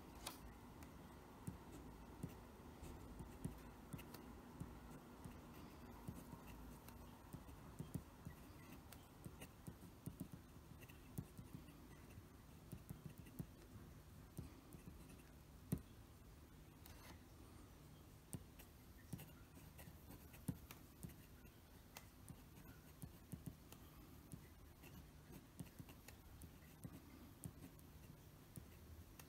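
Faint scratching and light irregular ticks of a Parker Premier fountain pen's steel nib on brown kraft paper during handwriting, each short stroke and pen-lift making its own small tick.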